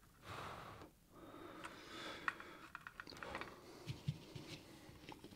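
Quiet workbench sounds: two soft breaths in the first couple of seconds, then a few faint clicks and taps as soldering tools and wire are handled.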